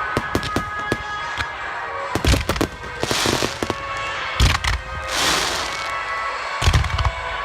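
Aerial fireworks shells bursting at close range: quick pops in the first second or so, then three deep booms about two, four and a half, and nearly seven seconds in, with crackling showers of sparks after the first two. Music plays underneath.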